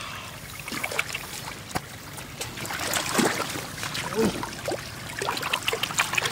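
Shallow floodwater splashing and trickling, with irregular sharp splashes and drips.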